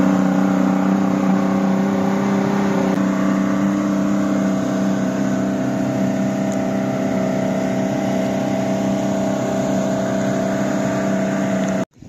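Boat's outboard motor running at a steady cruising speed, its even engine note over the rush of water and wind. The note shifts slightly about three seconds in.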